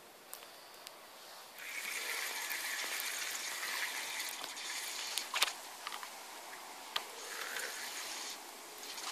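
Water splashing and sloshing at the bank's edge as a small hooked roach is drawn in at the surface, with a few sharp clicks of handling.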